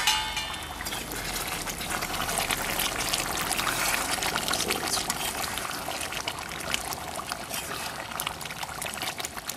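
Thick chicken curry gravy bubbling and crackling in a pan on the fire, a steady wet sputter, while a metal spatula stirs through it.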